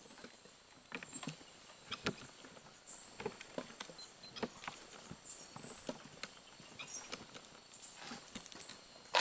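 Irregular knocks and clicks, a few a second, from riding on a walking elephant: the wooden riding seat and gear jolting with each step.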